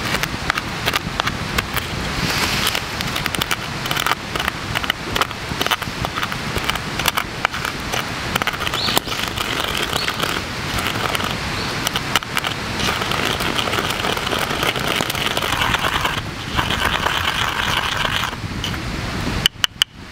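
Coffee grounds being crushed in a ridged ceramic suribachi with a wooden pestle, a continuous gritty grinding and scraping full of small cracks as the grounds are worked finer.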